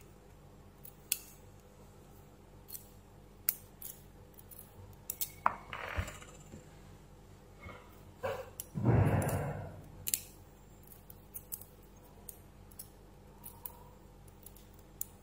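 Steel tweezers clicking and tapping against small metal gearbox parts of a cordless drill as gears and pins are handled, in scattered sharp ticks. About nine seconds in comes a louder scraping rustle lasting about a second.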